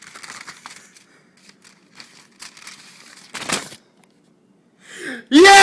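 Faint crinkling and rustling with small clicks, a louder rustle about three seconds in, then a loud, drawn-out excited yell of "yeah" starting near the end.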